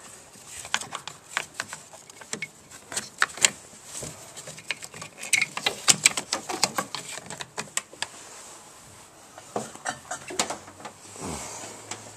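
Irregular clicks, taps and light rattles of hard plastic as the brake booster vacuum pipe is worked and handled by hand, with a soft rustle near the end.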